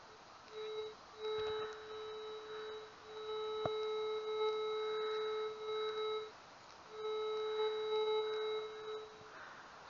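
Metal detector's target tone: a steady single-pitched beep held for a second or more at a time, four times with short gaps, signalling buried metal under the coil. A single sharp click comes about halfway through.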